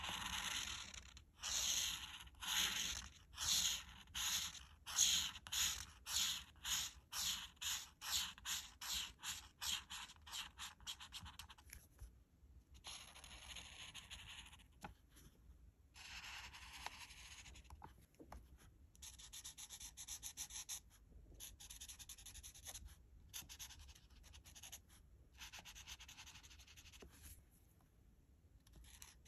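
Art marker nib rubbing across paper as an area is coloured in. For about the first twelve seconds it makes quick back-and-forth strokes, about two a second and getting faster. After that it makes longer sweeping strokes of a second or more, with short pauses between them.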